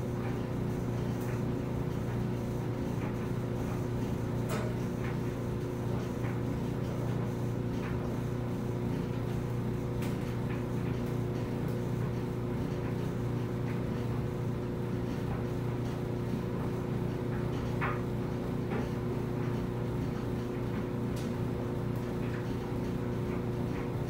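Front-loading clothes dryer running with its drum tumbling a load of laundry: a steady hum and rumble, with a few faint taps now and then.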